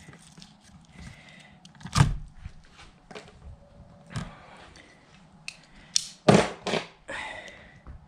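Wire strippers cutting and stripping 12-gauge electrical wire: a few sharp snips and crunches, the loudest about two seconds in and a quick cluster around six seconds in.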